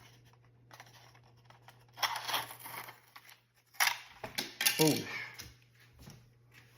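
Plastic clicks and a short scrape from a Kidde C3010 carbon monoxide alarm and its mounting bracket being handled: a scrape about two seconds in and sharp clicks near four seconds.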